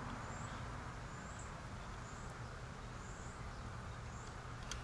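Quiet outdoor background with a faint, short, high call from a small animal repeating about once a second. A couple of sharp clicks come near the end.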